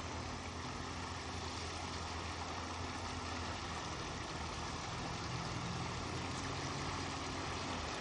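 A boat motor running steadily with a low hum, its tone shifting a little about halfway through, over a constant hiss of wind and water.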